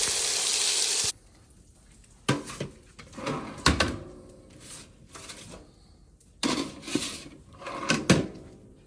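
A loud steady hiss that cuts off suddenly about a second in, followed by scattered knocks and clatters of hard objects being handled, some with a short ring.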